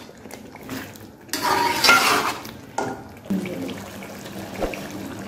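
Flat metal rice spoon stirring and scraping chicken pieces in thick masala inside an aluminium pot, with clinks of metal on the pot. The loudest scraping comes about a second and a half in.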